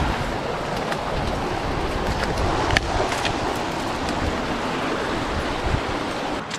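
A mountain creek rushing, a steady noise, with a sharp click a little before the middle.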